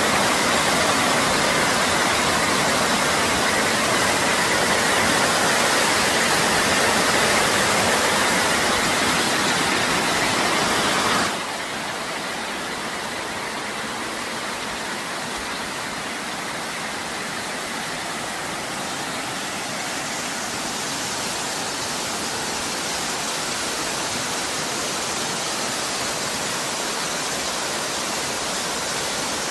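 Waterfall water rushing in a steady, even roar. About eleven seconds in it drops abruptly to a quieter, slightly duller rush, which then holds steady.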